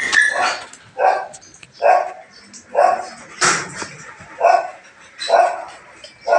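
A dog barking over and over, steadily, about one bark a second.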